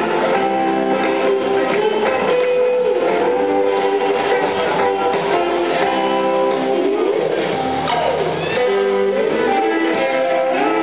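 Live rock band playing an instrumental passage, with electric guitars carrying the melody over the drums. About two-thirds of the way through, a guitar line glides up and then down in pitch.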